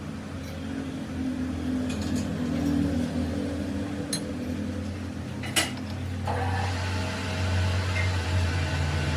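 Metal lathe's motor running with a steady low hum, with several sharp metal clinks of tools or parts, the loudest about five and a half seconds in. About six seconds in, a steady scraping hiss joins the hum.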